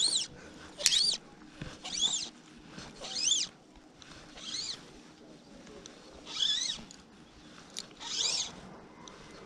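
A small animal repeating a short, high, squeaky call about seven times, one to two seconds apart, each call rising and falling in pitch.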